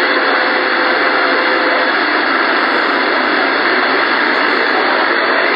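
Steady hiss of static from an ICOM IC-746 transceiver's speaker on an open HF channel with no station coming through, the sign of a band that is weak for skip at this moment. A faint steady whistle of a carrier sits in the hiss for the first two seconds or so.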